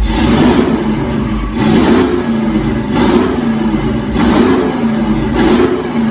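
Chevy 350 small-block V8 revving in about five repeated blips, a steady engine sound swelling every second or so, through long-tube headers, an H-pipe and Black Widow mufflers with no catalytic converters.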